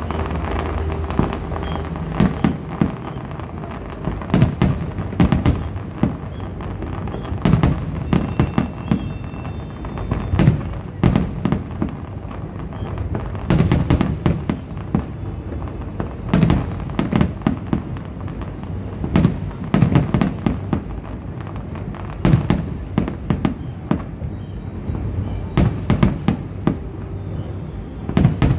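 Fireworks display: aerial shells bursting in rapid clusters of sharp bangs every two to three seconds, over a continuous low rumble.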